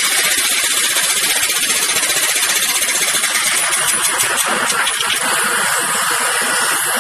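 Jackhammer hammering without a break, a dense rapid clatter of blows.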